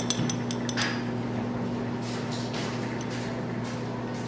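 A steady low electrical hum, with a few light clicks of tableware in the first second as metal chopsticks and a small ceramic plate are handled.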